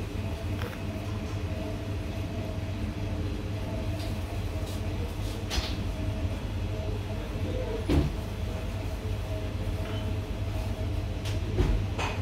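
Steady low hum of a café's background, with a few brief knocks and clicks, the loudest about eight seconds in and near the end.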